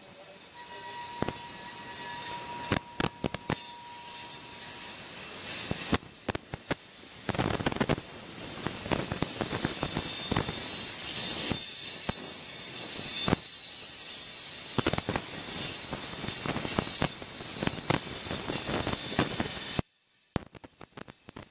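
Freight train cars rolling past: steady wheel-on-rail noise with irregular clacks as the wheels cross rail joints, and thin, high wheel squeal in the first few seconds and again around the middle. The sound drops away abruptly near the end.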